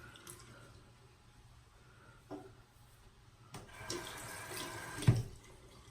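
Sink tap running for a second or so as a shaving brush is rinsed out, with a knock about two seconds in and a louder thump against the sink near the end.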